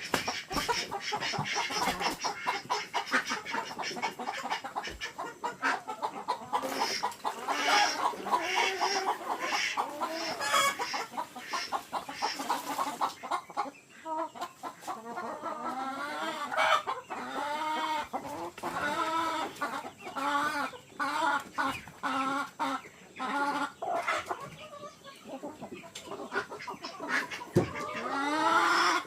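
A flock of farm chickens clucking and calling, many birds at once, with short repeated calls overlapping densely in the first half and coming more separately later.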